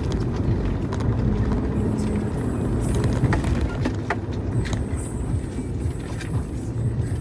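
Off-road vehicle engine running steadily, with scattered short knocks and rattles.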